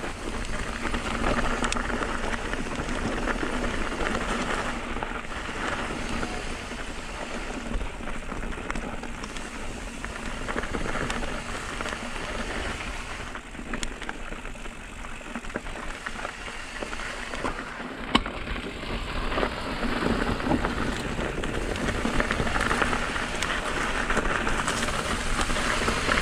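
Mountain bike rolling down a rocky dirt trail: a steady gritty hiss of the tyres on dirt and gravel, with scattered clicks and rattles from the bike.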